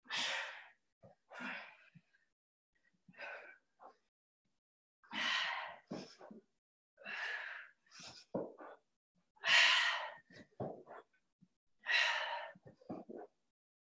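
A woman breathing hard from exertion during a workout: forceful, breathy exhales every second or two, some louder than others.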